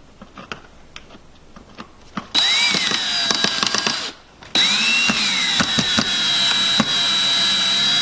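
Cordless drill with a screwdriver bit driving a screw into the flip-out mounting ear of a blue plastic old-work electrical box. A few light handling clicks come first. The drill then runs in two spells: one starts a little over two seconds in and stops around four seconds, and a longer one follows. Its pitch rises at each start and then slowly falls.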